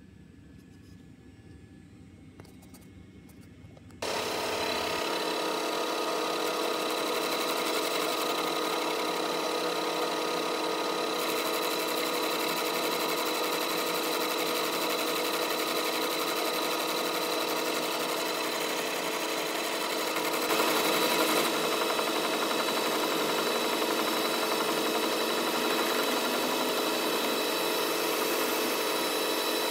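Faint hum, then about four seconds in a metal lathe starts abruptly and runs steadily with several constant tones as it turns a steel electric-motor shaft built up by wire welding. It gets a little louder about two-thirds of the way through.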